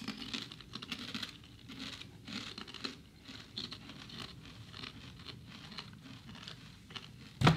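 People chewing crunchy kettle-style potato chips: an irregular run of crisp crunches, with a brief loud bump near the end.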